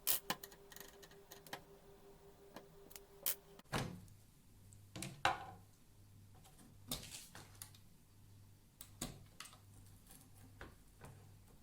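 Scattered clicks, taps and knocks of plastic and metal parts being handled while an induction cooktop is taken apart, with a few louder knocks over a faint steady hum.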